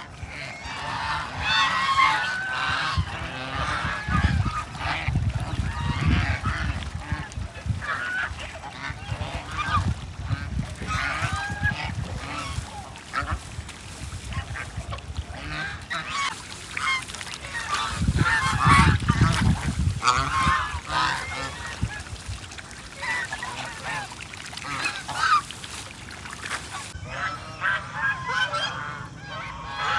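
A flock of ducks calling over one another almost without a break. There are two spells of low rumble, around five seconds in and again just before twenty seconds.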